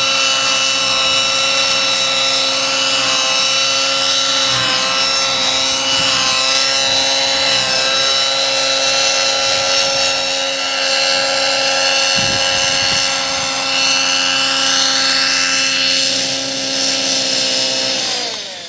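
Align T-Rex 600LE radio-controlled model helicopter in flight: a loud, steady whine from its rotor and drive. Near the end the pitch falls and the sound fades as the helicopter sets down and spools down.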